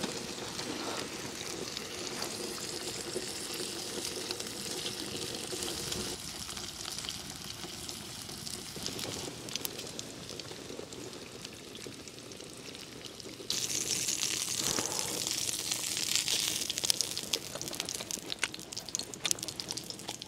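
Food cooking on a wood-burning tent stove: a steady sizzling and bubbling hiss with small crackles, louder abruptly from about two-thirds of the way through.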